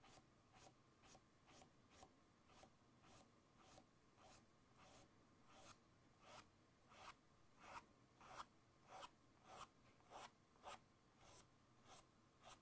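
Faint brush strokes on canvas: an artist's brush loaded with blue acrylic flicked across stretched canvas in short, quick strokes, about two a second, like a dry scratching.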